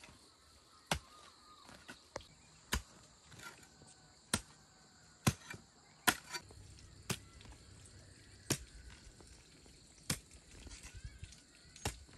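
Hand chopping with a blade: about nine sharp single strikes, roughly one every second or so at an uneven pace.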